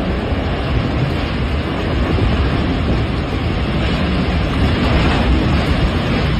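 Loud, steady rushing noise with a heavy low rumble, growing slightly louder about two seconds in.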